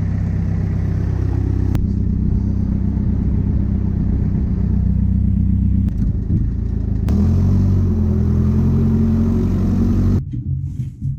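Machinery running with a steady low hum, in three abruptly cut segments; the sound drops away suddenly about ten seconds in.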